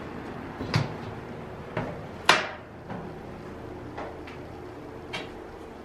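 A series of short, irregular knocks and clacks, about seven in all, the loudest a little over two seconds in, over a faint steady background.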